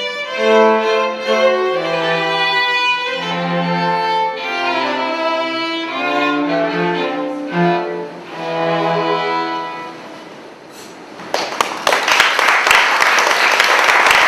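Live string trio, violin above cello, playing the closing bars of a piece with sustained bowed notes; the final chord fades about ten seconds in. A little over a second later the audience breaks into loud applause, which continues to the end.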